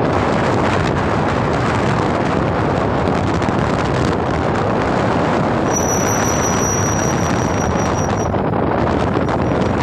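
Wind rushing over the microphone of a handlebar-mounted phone as a road bike rolls along at speed: a loud, steady rush. A thin high whistle sounds for about two seconds past the middle, then cuts off.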